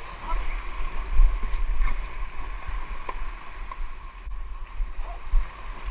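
Water noise and a low, gusting wind rumble on the microphone of a kayak at sea, with a few faint knocks.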